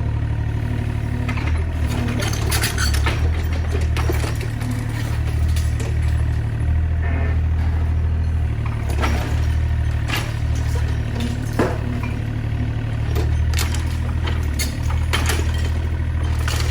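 Excavator's diesel engine running steadily, its low drone pulsing as the load changes. Scattered sharp knocks and cracks from the demolition are heard over it, the loudest about two thirds of the way through.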